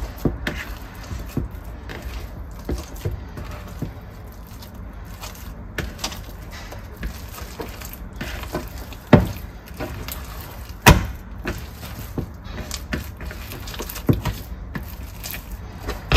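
Hands stretching and folding wet, bubbly ciabatta dough in its container during bulk fermentation: soft handling noises and scattered clicks, with two sharp knocks about nine and eleven seconds in.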